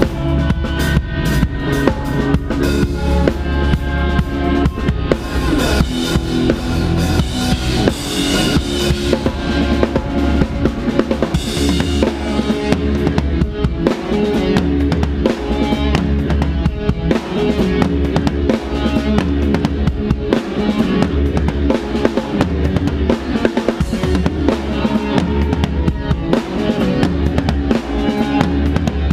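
Rock band playing live, heard from right behind the drum kit: the drums are loudest, with dense, hard-hitting kick drum, snare and cymbals over sustained bass and guitars.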